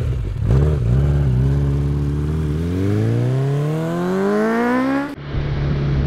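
A motorcycle engine revving, its pitch climbing steadily for about two and a half seconds until it cuts off abruptly about five seconds in. Then a Honda PCX 125 scooter's single-cylinder engine runs at a steady pitch under way.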